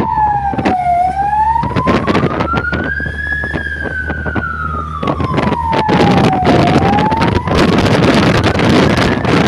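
Emergency vehicle siren on a slow wail, gliding down, up and down again in pitch, one full rise and fall taking about six seconds. It fades behind heavy wind buffeting on the microphone and a vehicle's running rumble in the last couple of seconds.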